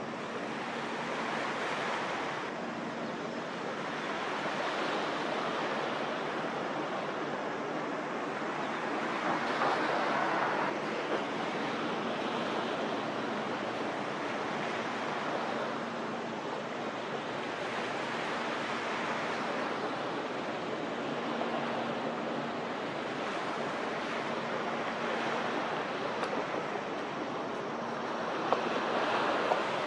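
Small harbour waves washing against the shore: a steady rushing that swells and ebbs every few seconds. A faint, steady low hum sits underneath.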